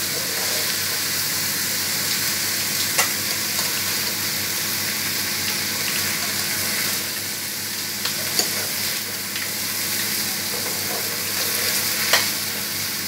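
Steady frying sizzle while soaked basmati rice and vegetables are stirred slowly with a metal spoon in an aluminium pot; the spoon clicks against the pot a few times.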